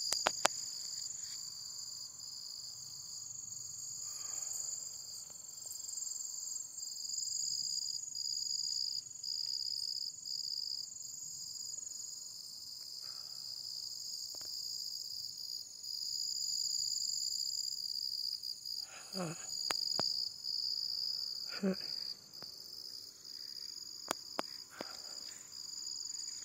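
Night insect chorus: steady high-pitched trilling in two bands, with a few clicks near the start and two short lower sounds about three-quarters of the way through.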